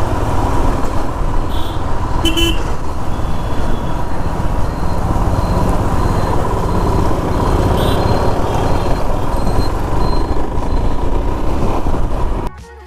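Motorcycle riding through city traffic: heavy wind rumble on the microphone over engine and traffic noise, with a few short vehicle horn toots, the clearest about two and a half seconds in. The sound cuts off just before the end.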